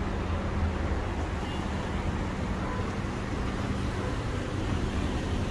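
City street noise: a steady low rumble of traffic with an even low hum.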